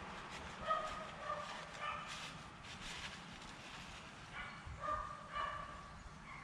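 A dog yipping and barking in short high calls, a few at a time, in two bursts.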